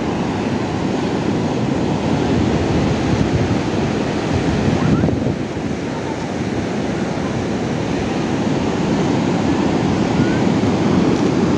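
Sea surf washing in on a beach, a steady rush of waves, with wind on the microphone.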